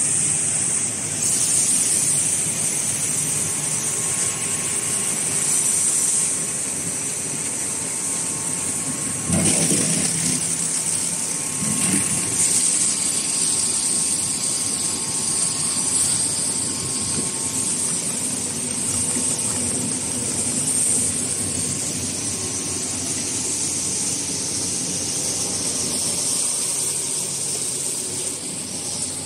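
Tomato processing line machinery running: a steady mechanical noise with a constant high hiss, and a short louder clatter about nine and again about twelve seconds in.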